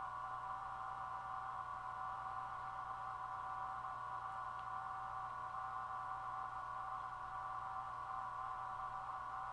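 Minimodem audio data signal sent by a Raspberry Pi 4: a steady, mid-pitched two-tone modem warble, frequency-shift keying that carries text characters as they are transmitted.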